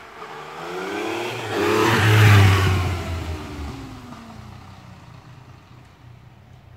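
A motor vehicle passing close by: its engine note rises in pitch and loudness to a peak about two seconds in, then drops in pitch and fades away.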